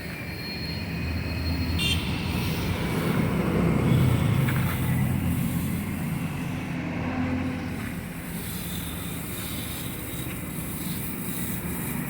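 Machinery running steadily: a low engine-like hum under a continuous hiss.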